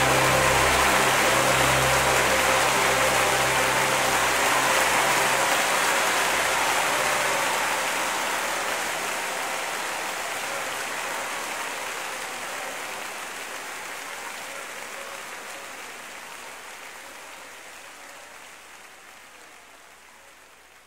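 End of a worship song fading out: a held final chord dies away over the first few seconds, while a rushing wash of noise fades steadily to almost nothing and then cuts off.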